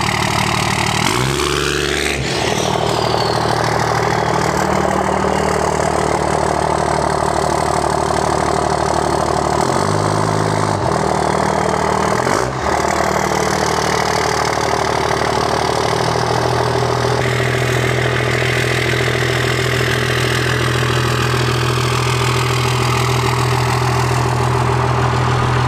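Cummins diesel in a second-generation Dodge Ram, heard through an oversized stack exhaust fitted as the tailpipe. The engine runs loud and steady as the truck pulls away and comes back, its note shifting a few times.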